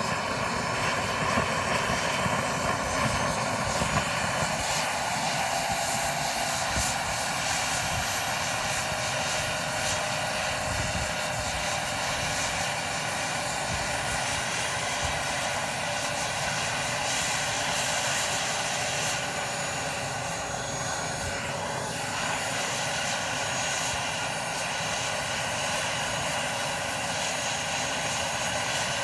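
Large radio-controlled scale BK 117 helicopter running on the ground with its main rotor turning: a steady whine over a rushing noise, the pitch sinking a little a few seconds in.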